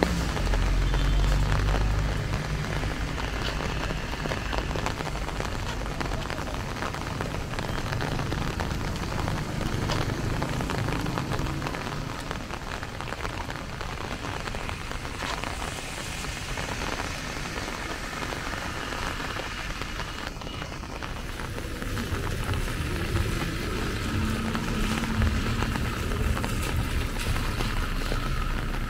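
Rain falling steadily, an even wash of noise, with a low rumble in the first two seconds that dies away.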